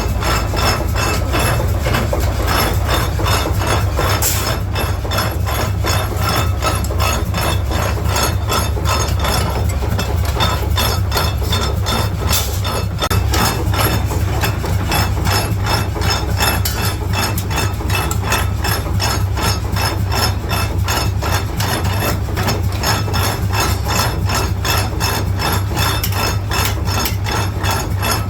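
Metalworking workshop machinery running, with rapid, evenly spaced knocks, about five a second, over a steady low hum.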